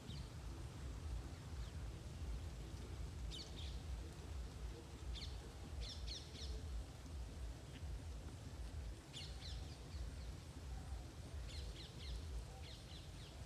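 Small birds chirping, short high calls in quick clusters about six times, over a steady low rumble.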